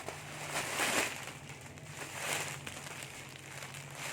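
Plastic packaging crinkling and rustling as a packed gown is handled, in several bursts, the loudest about a second in.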